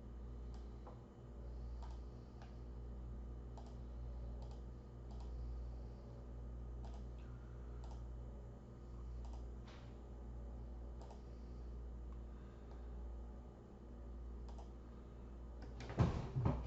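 Computer mouse clicking now and then, single sharp clicks at irregular intervals, over a steady low electrical hum.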